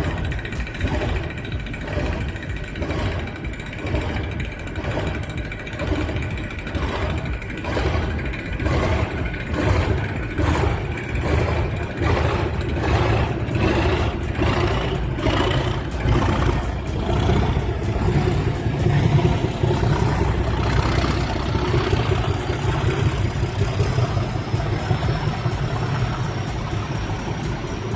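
Train picking up speed: a rhythmic beat quickens over the first half or so, while a whine rises slowly in pitch over a low rumble.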